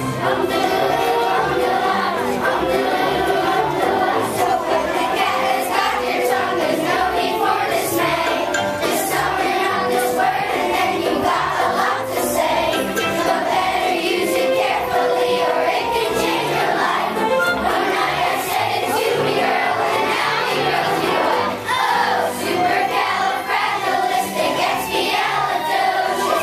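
A group of children singing together in unison with musical accompaniment.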